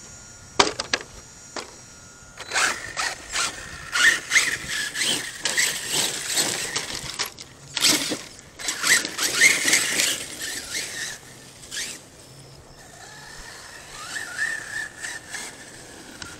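Arrma Kraton 6S RC truck running on dirt: its brushless motor whines, rising and falling in pitch with the throttle, over crunching and repeated knocks from the tires and chassis on the ground.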